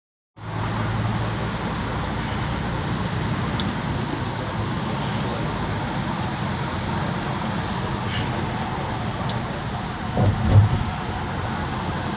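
Steady road and engine noise of a moving vehicle, heard from inside its cabin, with a brief low thump a little after ten seconds.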